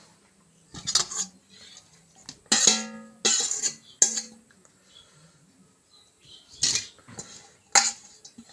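A plate and eating utensils clinking and scraping while someone eats, in a run of short, sharp clatters, one of them ringing briefly.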